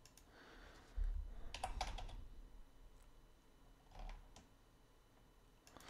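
Computer keyboard keys tapped as shortcuts: a low thump about a second in, a quick cluster of three or four clicks just after, and two more single clicks about four seconds in.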